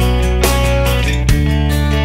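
Background music: a guitar-led track with a steady beat, its bass and chords changing about once every second and a half.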